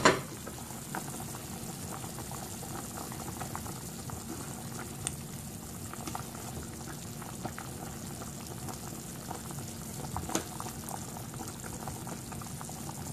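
Beef and vegetable soup boiling steadily in an uncovered stockpot, a continuous bubbling with a few light clicks of a ladle against the pot. It opens with a brief metal clatter as the pot lid comes off.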